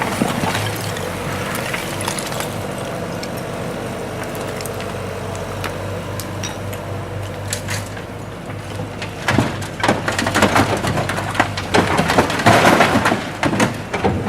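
Diesel loader engine running steadily at a construction site. From about two-thirds of the way in, a dense clatter of brick and rubble knocking and crashing comes on top of it and becomes the loudest sound.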